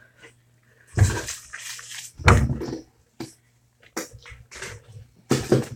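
Handling noise close to the phone's microphone: rustling and bumping as things are moved about on the desk, with two louder scuffs about one and two seconds in, then a few lighter clicks and knocks.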